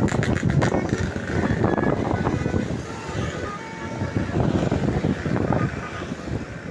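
Roadside traffic noise as a bus goes by, engine and tyres running steadily. A few short tones from a multi-tone 'telolet' bus horn come about two seconds in.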